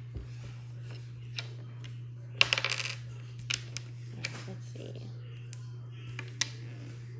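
Wooden Scrabble tiles clicking and clattering: a quick rattle of several tiles knocking together about two and a half seconds in, then single clicks as tiles are set down on the board. A steady low hum runs underneath.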